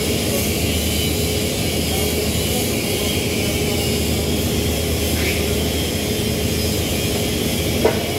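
Steady drone and hiss of workshop machinery with a faint steady hum, unchanged whether the welding arc is lit or not. A single short clack comes near the end as the welding helmet is flipped up.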